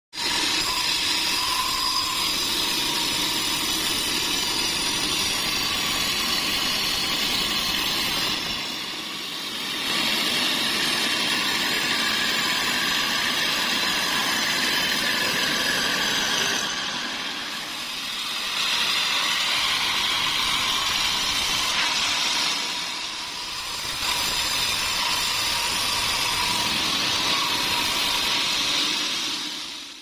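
Band sawmill running and cutting through a large pine log: a steady, loud hiss from the blade and motor with a thin steady whine in it. The sound dips briefly three times.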